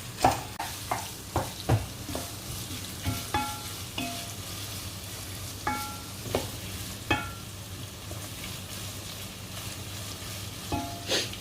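Grated onion, carrots and peas sizzling in ghee in a pot while being stirred, the spoon scraping and knocking on the pot with occasional short ringing clinks.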